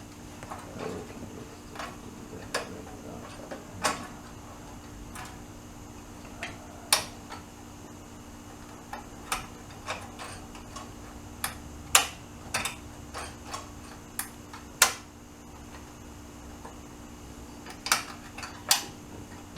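Hand tools and small metal parts clicking and clinking at irregular intervals while throttle springs and linkage are taken off a go-kart's small engine, a few clicks sharper than the rest, over a steady low hum.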